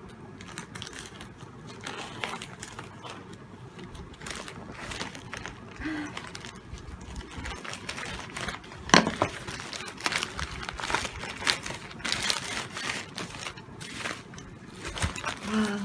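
Plastic courier mailer rustling and crinkling as it is cut open and handled, with scattered small clicks and one sharper knock about nine seconds in.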